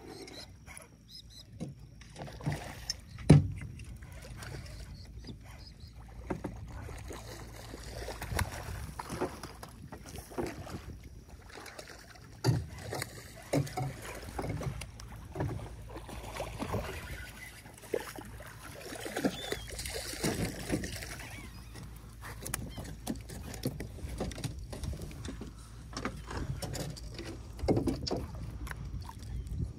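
Irregular knocks and thumps on a small fishing boat over a low, steady rumble, with one sharp loud knock about three seconds in.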